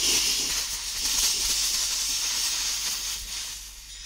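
Gas brazing torch flame hissing steadily while aimed at an aluminium-to-copper refrigerator pipe joint, easing slightly near the end.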